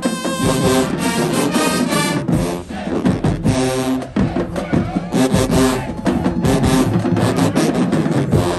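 Marching band playing at full volume: brass with sousaphones sounding loud held chords, cut by frequent sharp percussion hits.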